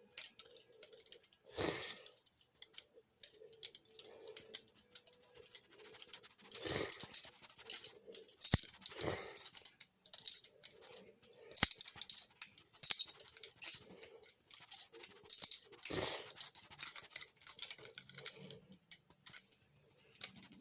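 Balisong (butterfly knife) being flipped: its handles click and rattle against each other in quick runs, with a few louder swishing clatters scattered through.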